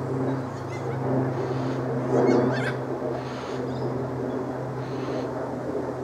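Yellow-tailed black cockatoo giving a few short calls, the loudest about two and a half seconds in, over a steady low hum.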